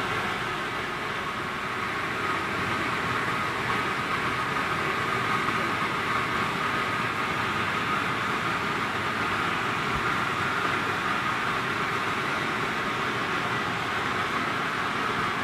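Steady mechanical noise of an industrial boiler running, an even din of blower and fire with no distinct knocks or breaks.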